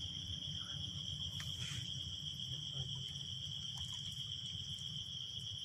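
Steady, high-pitched insect chorus holding one continuous shrill tone, with a fainter higher one above it, over a constant low rumble.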